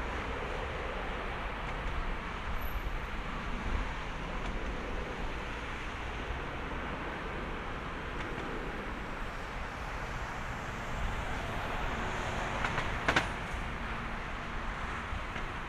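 Airbus A320-214's two CFM56-5B turbofan engines at takeoff thrust during the takeoff roll, heard from afar as a steady rumble. A single sharp click sounds near the end.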